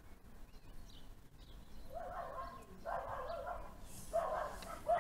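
A dog barking several times in the second half, in short calls one after another, with no thunder heard.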